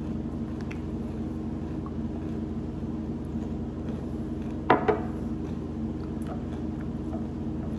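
Steady low hum, with a sharp double knock about halfway through: a glass hot sauce bottle set down on the stone countertop.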